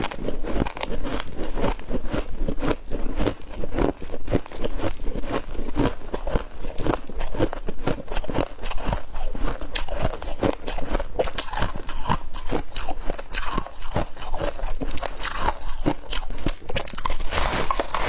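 Fluffy freezer frost being bitten and chewed close to the microphone: many crisp crunches in quick, irregular succession.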